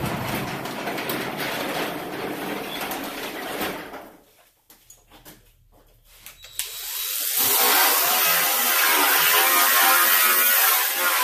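A cordless angle grinder with a sanding disc spins up about seven seconds in and sands the steel door panel steadily. Before that, another steady noise fades out about four seconds in, followed by a short quiet gap with a few clicks.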